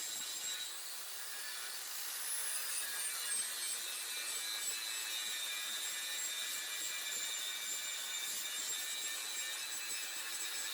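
Plasma cutter running steadily: a continuous high air hiss with faint whistling tones, one of them falling slightly in pitch about two seconds in.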